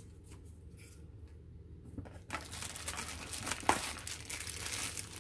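Clear plastic bag crinkling as a handheld radio is lifted out of its cardboard box in the bag, starting about two seconds in, with one sharper crackle partway through.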